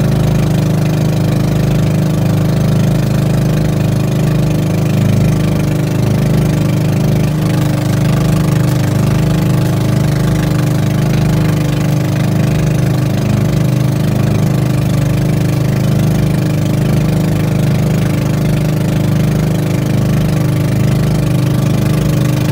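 Boat engine running steadily at a constant speed, an even hum with no change in pitch.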